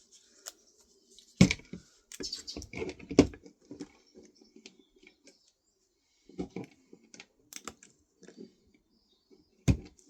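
Irregular clicks and taps of small tools and metal parts being handled as a floppy disk drive is taken apart, with sharper knocks about one and a half seconds in, around three seconds in, and near the end.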